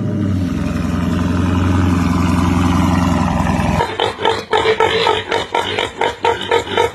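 An animal making engine-like sounds: a steady low drone for the first few seconds, then, from about four seconds in, a rapid rhythmic pulsing like a revving motor.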